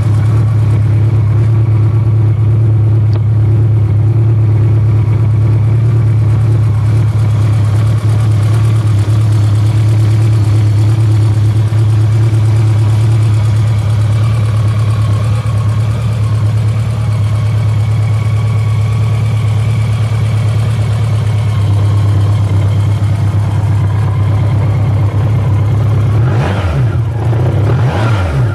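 BMW K1200LT's inline-four engine idling steadily, then revved briefly a couple of times near the end.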